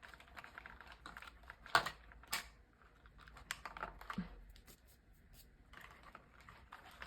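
Small clicks and taps of hands handling a plastic doll and its packaging, with two sharper clicks about two seconds in.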